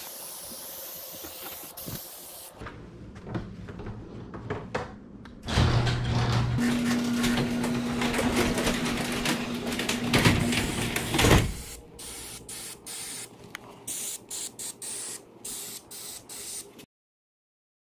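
Garage door opener running a wood sectional door along its tracks for about six seconds: a steady motor hum over rattling. It is followed by a series of light clicks and knocks, and the sound cuts off suddenly near the end.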